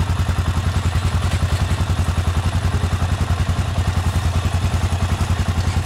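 Single-cylinder four-stroke ATV engine idling, a steady, even low putter.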